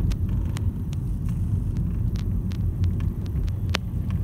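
Steady low road and engine rumble inside a moving car's cabin, with a few light clicks, the sharpest near the end.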